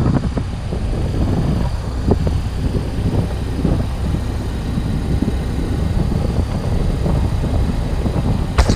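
Motorcycle engine and road noise heard from a camera on the bike while riding, a steady low rumble. A brief louder burst comes just before the end, then the sound cuts off abruptly.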